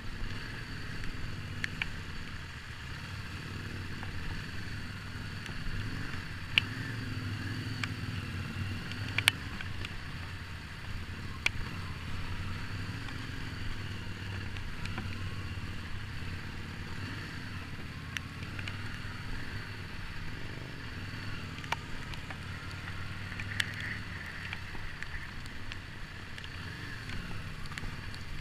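Harley-Davidson Street 750's V-twin running steadily at a low road pace, with a few sharp knocks now and then.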